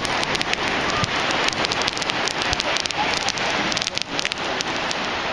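Fireworks crackling: a dense run of quick, sharp pops over a steady hiss.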